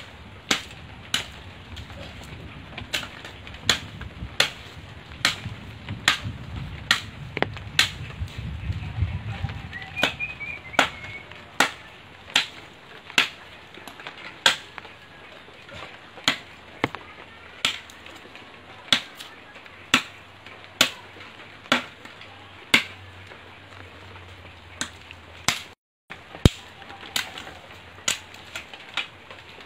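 A machete chopping branches into firewood: sharp, evenly spaced chops, about three every two seconds, with a brief break near the end. A bird chirps a few times about a third of the way in.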